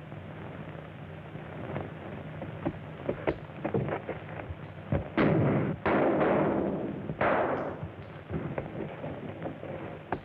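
Sound effects on an old, hissy film soundtrack: scattered sharp knocks, then three loud crashing bangs in quick succession near the middle, each dying away over about a second.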